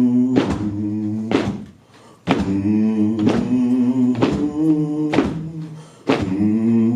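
Slow music: a held, hummed or sung low chord with a heavy thump about once a second, the chord breaking off briefly every few seconds.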